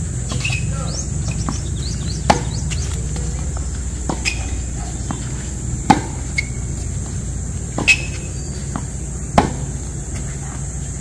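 Tennis rally: a ball struck back and forth with rackets, five sharp pops spaced about one and a half to two seconds apart.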